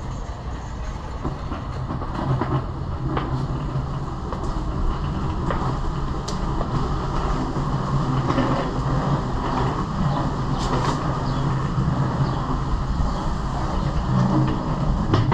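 Longboard wheels rolling over pavement: a steady rumble with irregular clicks as the wheels cross sidewalk joints and cracks.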